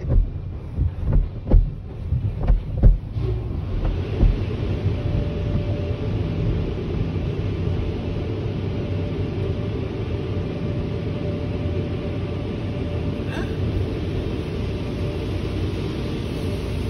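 Automatic car wash heard from inside the car's cabin: a few thumps in the first three seconds, then a steady rush of water jets and washing equipment on the car's body and windshield.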